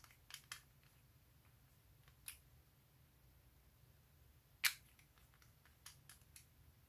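Scattered sharp clicks and taps of a glass nail polish bottle and its plastic brush cap being handled, the loudest about two-thirds of the way in, followed by a quick run of small ticks as the cap goes back on.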